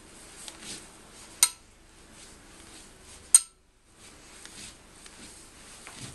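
A watercolour brush stroked across rough watercolour paper, a faint soft brushing, broken by two sharp ringing clinks about two seconds apart. The sound cuts out briefly just after the second clink.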